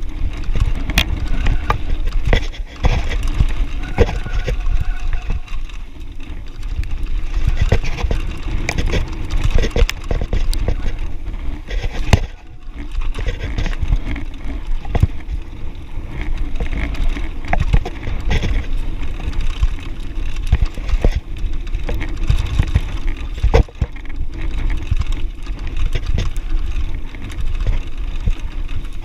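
Mountain bike rolling fast down a rocky dirt singletrack: a constant low rumble of tyres on dirt and gravel, with frequent sharp clicks, knocks and rattles from the bike as it runs over stones.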